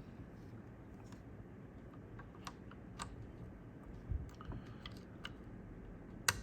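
Scattered light clicks and taps as large capacitors are pushed into a circuit board and handled, over the steady hum of an air-conditioning unit. The sharpest click comes near the end.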